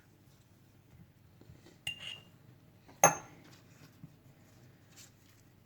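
A metal spoon clinking against a jar as honey is spooned over sliced onion: two light clinks about two seconds in, one sharp ringing clink about a second later, then a couple of faint taps.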